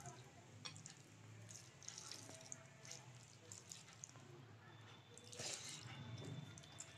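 Fingers mixing soft rice with dal on a plate, making faint wet squelching and small scattered clicks, a little louder about five and a half seconds in, over a faint steady low hum.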